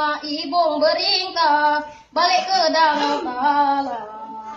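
A boy singing unaccompanied, holding and bending long notes, with a short break for breath about two seconds in.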